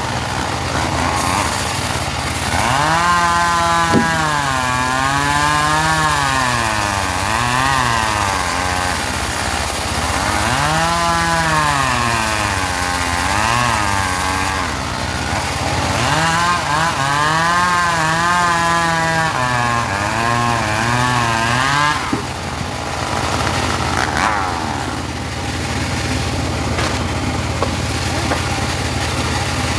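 Engine-driven portable bandsaw sawmill running as it saws teak, its engine pitch rising and falling again and again. A little over 20 seconds in, the swings stop and it runs steadier.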